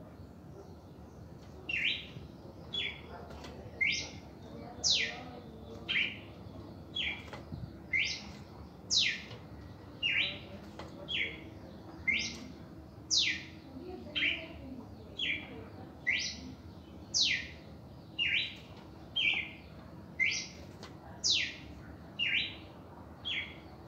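Red-crested cardinal singing: a steady run of short, clear notes, some sweeping down from high, about one and a half per second, beginning about two seconds in.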